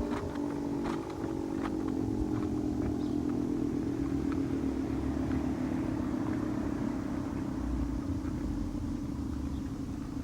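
Federal Signal 2T22B dual-tone siren winding down after its test, its low chord slowly falling in pitch.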